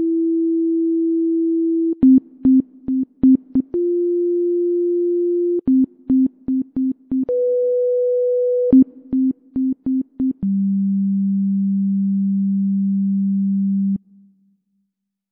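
Synthesizer sine-wave tones playing a simple pattern: a run of short, clicky beeps on one low note, about four a second, alternating with a held note, which steps up twice and then drops to the lowest and longest note before cutting off with a click.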